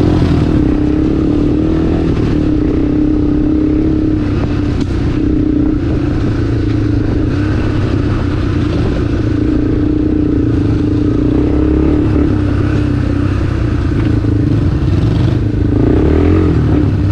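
Motorcycle engine running steadily off-road, holding a near-constant engine speed.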